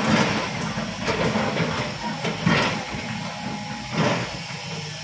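Volvo crawler excavator working: steady diesel engine and hydraulic noise, with two sharper knocks about two and a half and four seconds in.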